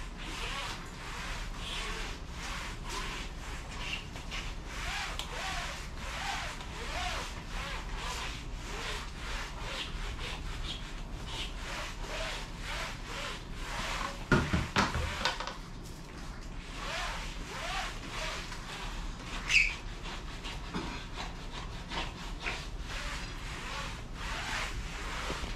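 Wet string mop scrubbing back and forth over interlocking foam floor mats, a steady run of rubbing strokes. A louder clatter comes about halfway through, then a single sharp knock a few seconds later.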